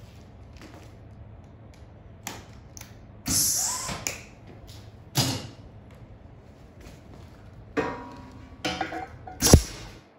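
Scattered metal knocks and clanks from handling steel in a fabrication workshop, some with a brief ring, and a short scraping burst about three seconds in.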